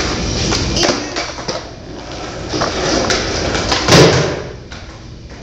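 Skateboard wheels rolling on a concrete floor, building up, then a sharp wooden clack about four seconds in as the board strikes a small wooden box, after which the rolling fades.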